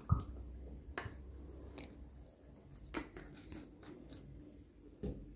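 Plastic oil bottle being handled while baby oil is poured into a small glass jar: a few soft clicks and crinkles of the plastic, about five in all, the first the sharpest.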